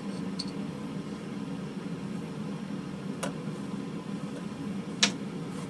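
Steady low mechanical hum, with two short sharp clicks about three and five seconds in.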